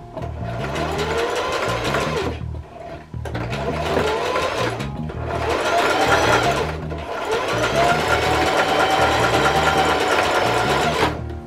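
Singer Heavy Duty sewing machine stitching on a zigzag setting in four runs with short stops between them. The motor's pitch rises and falls as it speeds up and slows. Background music with a low bass line plays underneath.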